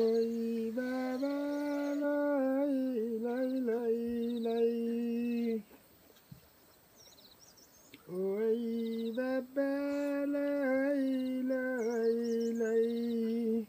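A man singing a slow, soft lullaby to a baby, with no clear words: two long phrases of held notes with gentle slides in pitch, separated by a pause of about two and a half seconds.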